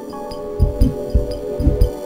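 Music: held, steady tones with irregular percussive knocks and low thumps.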